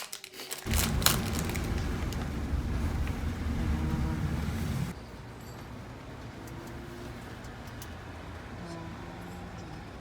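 A vehicle's low running rumble that cuts off suddenly about five seconds in, leaving a quieter steady hum.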